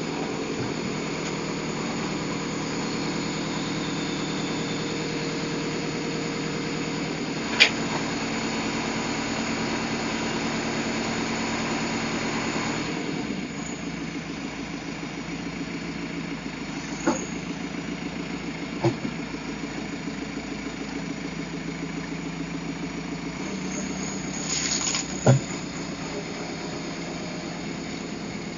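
Backhoe loader's diesel engine running steadily, its note changing and dropping a little about halfway through. A few sharp knocks break in, the loudest near the end.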